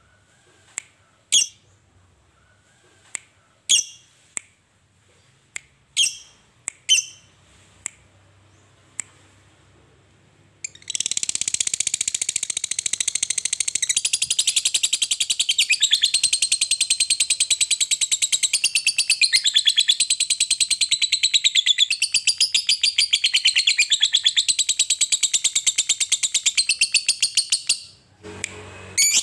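Fischer's lovebird calling: sharp single chirps about once a second, then about eleven seconds in a long, unbroken, rapid chattering trill (the prized 'ngekek panjang') that runs for about seventeen seconds and stops abruptly near the end.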